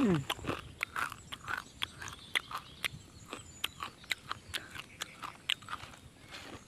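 A person chewing a mouthful of raw, dry instant noodles, with many sharp, crisp crunches one after another. A short falling squeak comes right at the start.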